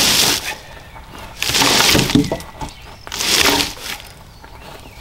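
Dry leaves and twigs crunching and rustling on the forest floor in short bursts about every one and a half seconds.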